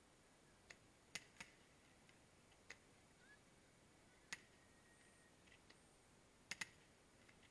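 Near silence broken by about eight faint, sharp clicks at irregular intervals.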